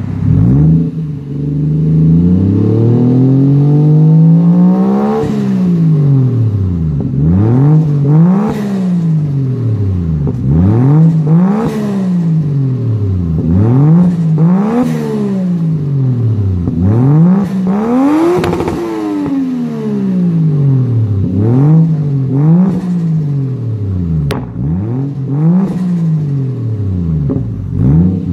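Exhaust of a Toyota Chaser JZX100's 1JZ-GTE turbocharged straight-six on its stock CT15B turbo, free-revved while parked. The revs climb slowly over the first five seconds and drop, then the throttle is blipped again and again, the pitch rising and falling every one to three seconds.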